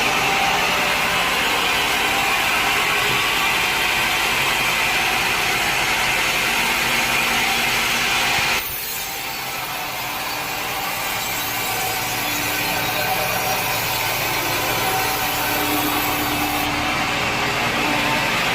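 A sawmill saw cutting through wood, a steady noisy drone. About nine seconds in the sound changes abruptly and drops in level, then slowly grows louder again.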